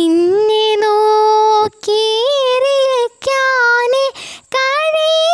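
A young girl singing a Malayalam Christian devotional song without accompaniment. She holds long notes with vibrato in short phrases, with a quick breath in each brief pause.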